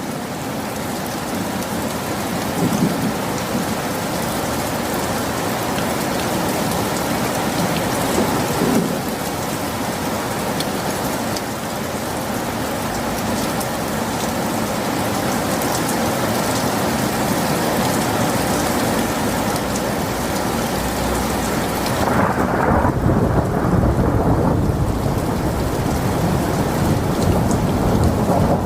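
Heavy rain falling in a steady, even hiss. About three-quarters of the way through the rain's hiss thins and a long, low rumble of thunder comes in and carries on.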